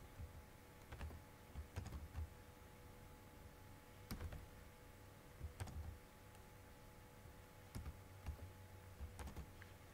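Sparse computer keyboard keystrokes, single key presses and short pairs about a second apart, as a terminal command is interrupted and edited.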